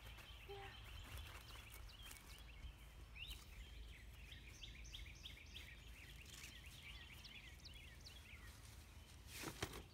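Faint outdoor background of many short bird chirps over a low steady rumble. A brief, louder rustling snap comes near the end: an umbrella being opened.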